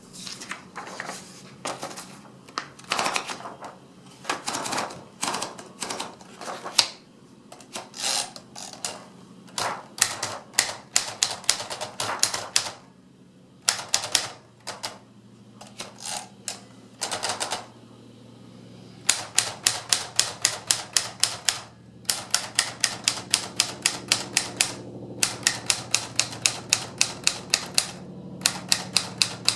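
Sears Tower Chieftain III typewriter being typed on: keys striking in irregular clusters with a few longer mechanical strokes, then, from about two-thirds of the way in, fast even runs of about three to four strikes a second with short pauses between them.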